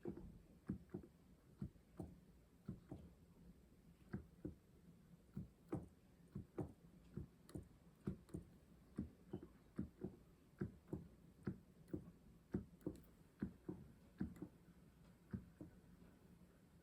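Keys of a Casio PX-S1100 digital piano's hammer action being played with no piano tone heard, making faint, irregular thumps and clicks about two to three a second. The tester finds this action noise a bit noisy.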